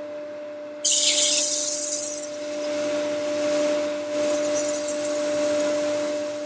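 Sandpaper pressed by hand against a wooden bowl spinning on a lathe: a loud hiss that starts suddenly about a second in and fades, then a second pass from about four seconds in. A steady machine hum runs underneath.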